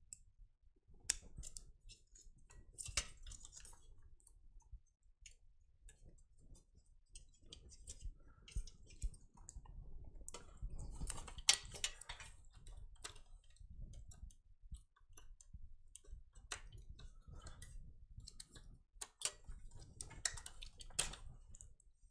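Scattered clicks, taps and plastic knocks of a hard drive in a plastic caddy being handled and SATA cables being plugged into a desktop motherboard, busiest about halfway through and again near the end.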